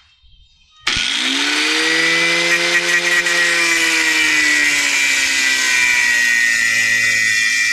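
Angle grinder switched on about a second in: its motor spins up with a quickly rising whine, then runs steadily while the pitch slowly sinks. It is being used to grind down a nub on the car's front steering knuckle to clear a bolt-on angle kit.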